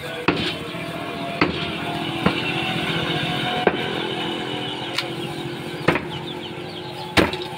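A meat cleaver chopping beef on a wooden tree-trunk block, about seven sharp chops at uneven intervals. Under them a motor vehicle engine hums, swelling and fading over the middle few seconds as it passes.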